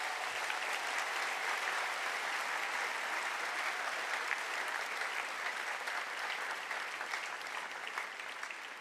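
Large outdoor crowd applauding, a dense steady clapping that dies away near the end.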